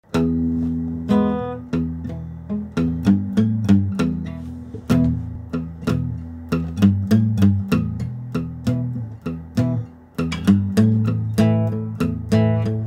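Background music: a guitar picking a steady run of plucked notes and chords over low bass notes, each note ringing and fading.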